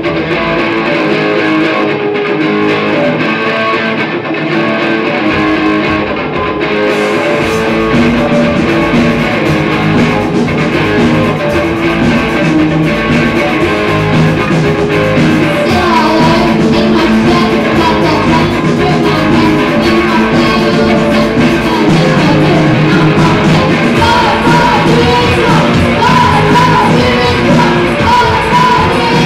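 Live rock band playing loudly: electric guitar, drums and bass, with a singer's voice coming in about halfway through.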